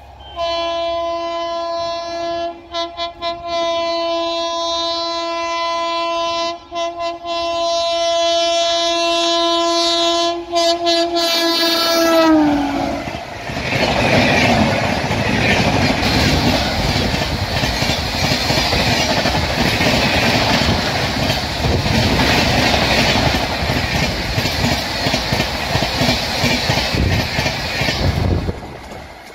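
WAP7 electric locomotive's horn sounded in a long blast with a few brief breaks as the train approaches at about 130 km/h, its pitch dropping as the locomotive passes about twelve seconds in. Then comes the steady rushing noise of the passenger coaches running through at speed, which ends abruptly near the end.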